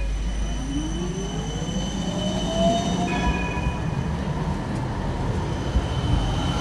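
Siemens Combino tram pulling away from a stop, its electric traction drive whining up in pitch as it speeds up over the first three seconds, over a steady low rumble of the wheels on the rails.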